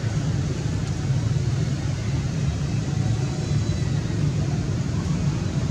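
Steady low rumbling noise with no distinct events in it.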